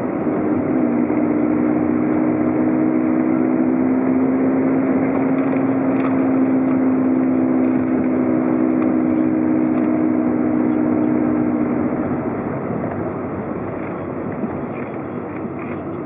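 A car driving along a street: a steady engine hum over road and tyre noise, the engine note fading away about twelve seconds in as the car eases off, leaving mostly road noise.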